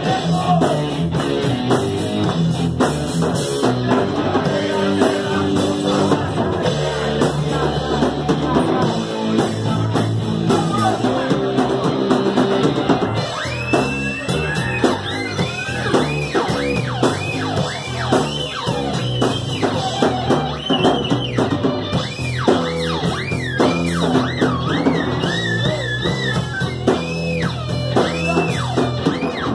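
Live rock band playing: electric guitar, bass guitar and drum kit. From about halfway through, a lead guitar line of bending notes rides over the band.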